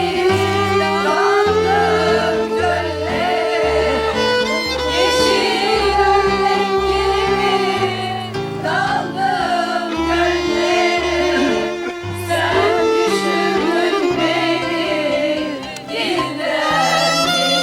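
Background instrumental music: a wavering, violin-like lead melody over a stepping bass line.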